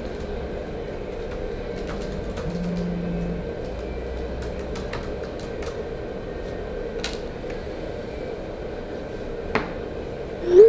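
Laptop keyboard typing: scattered soft key clicks over a steady low hum, with a short rising tone, the loudest sound, near the end.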